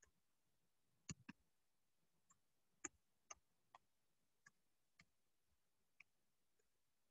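Near silence broken by about ten faint, sharp clicks at irregular intervals, with a quick double click about a second in.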